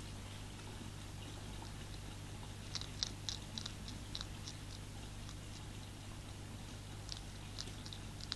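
Hedgehog crunching dry food from a feeding tray: quick crisp clicks in bursts about three seconds in and again near the end, over a steady low hum.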